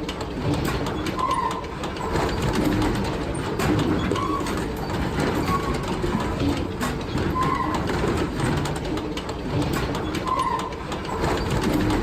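Sawmill log-sorting conveyors and machinery running: a steady mechanical din with frequent clanks and knocks, and a short tone that recurs at irregular intervals.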